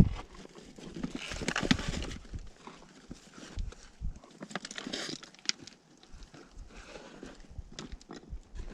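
A hiker's footsteps, a run of irregular crunching steps and sharp clicks.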